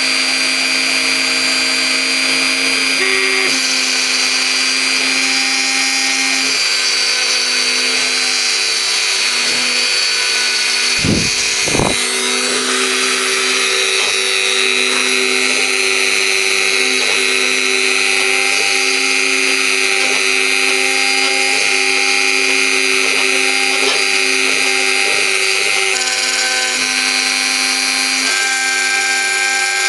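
Mini CNC router milling wood: its spindle whines steadily over cutting noise, and the whine's tone shifts a few times as the cut changes. There is a brief low knock about eleven seconds in.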